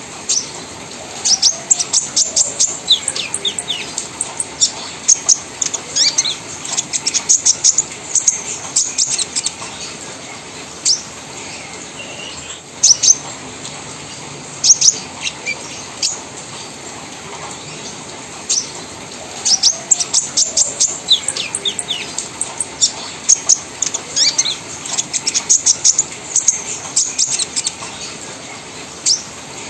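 Caged kolibri ninja sunbird singing in the rapid 'trotol crewet' chattering style: quick runs of sharp, high notes lasting a second or two, with short pauses between runs and a few single loud notes. This is the kind of song used to prompt untrained or silent sunbirds to start singing.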